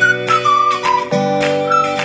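Background music: a high, gliding melody over held chords with a regular beat.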